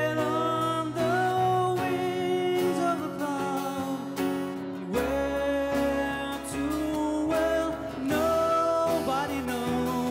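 Live band playing a slow ballad, with guitar to the fore and some singing, over a steady bass.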